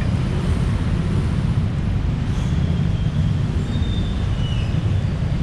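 Steady low rumble of city street traffic, with a few faint, brief high squeals.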